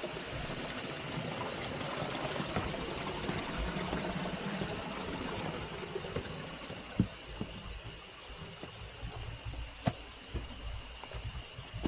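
Steady rushing of water like a nearby stream, with two faint steady high tones over it. A few sharp knocks of footsteps on rock come in the second half, as the rushing eases a little.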